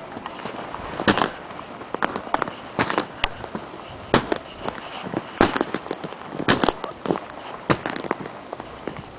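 Footsteps crunching in snow, a sharp crunch roughly every second.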